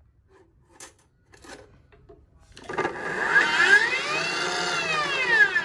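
Slow-speed metal cut-off saw cutting through a thin PVD-coated stainless steel trim strip: after a couple of light clicks, the saw starts about two and a half seconds in with a loud whine that rises and then falls in pitch.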